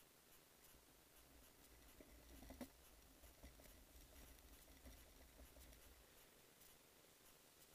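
Near silence, with a faint low rumble through the middle few seconds and a few light clicks, the loudest a little over two and a half seconds in.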